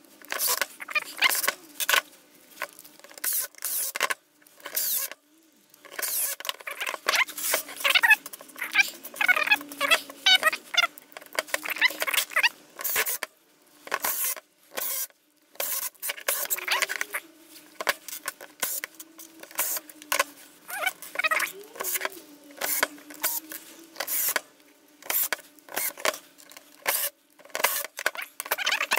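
Irregular clicking and clattering of metal parts, screws and tools being handled and fitted while a cordless impact wrench's housing is put back together, with a few brief pauses.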